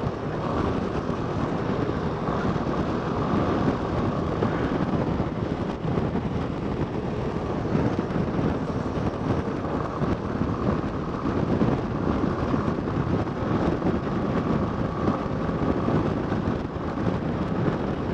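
Yamaha Fazer 250's single-cylinder engine running steadily at highway cruising speed, mixed with wind rushing over the microphone.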